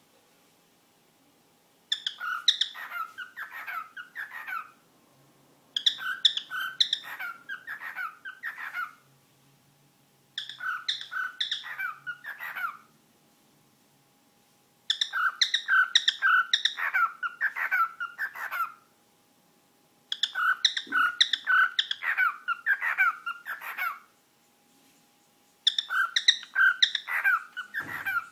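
Pet bird chattering in six bouts of rapid chirps, each a few seconds long, with short quiet pauses between.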